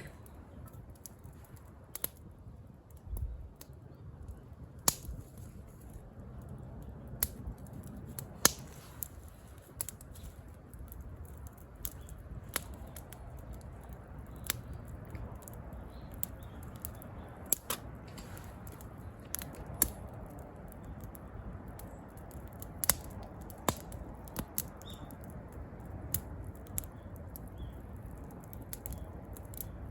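Wood campfire crackling: irregular sharp pops, about one every second or two, over a low steady background.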